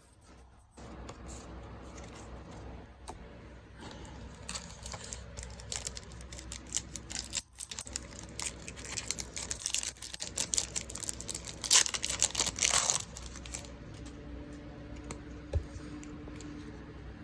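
Foil booster pack wrapper crinkling and tearing open, with playing cards being handled. The crackling thickens into its loudest rush about twelve seconds in.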